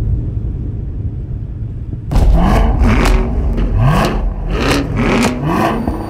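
Chevrolet Camaro V8 rumbling at low revs, then about two seconds in an abrupt run of quick revs, each one rising in pitch, with sharp cracks between them.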